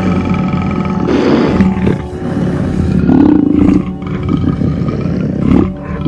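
A big cat roaring in several short, rough calls about every two seconds, over background music with held tones.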